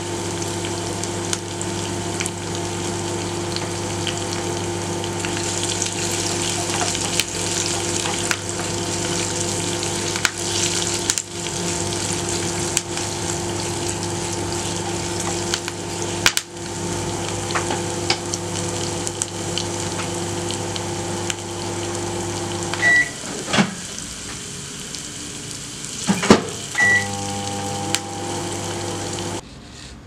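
Tadka of mustard seeds, cumin, curry leaves, green chillies and ginger sizzling in hot oil in a small pan, stirred with a wooden spatula, over a steady electrical hum. About three-quarters of the way through the hum stops for a few seconds, with a short high beep as it stops and another as it returns.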